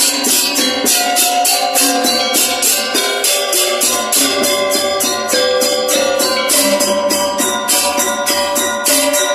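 Balinese gamelan ensemble playing: bronze metallophones and gongs ring in held, interlocking tones under quick, even strokes of the ceng-ceng cymbals.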